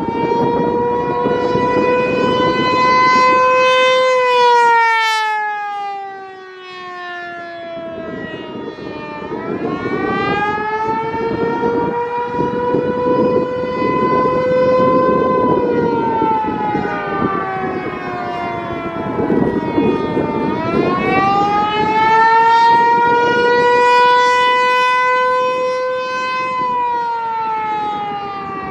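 American Signal T-128 outdoor warning siren sounding a wail test. Its pitch climbs, holds near the top and slides down again, falling three times about 11 seconds apart.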